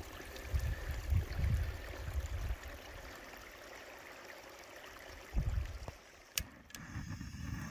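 Outdoor ambience: an even hiss with a few low rumbles, the strongest in the first two seconds and another shortly after five seconds in, and a brief click near the end.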